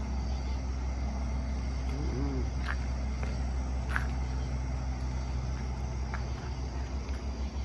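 Steady low rumble and hiss from a big house fire burning, with fire engines at work, and a few faint short chirps or pops above it. Near the end the rumble starts to flutter.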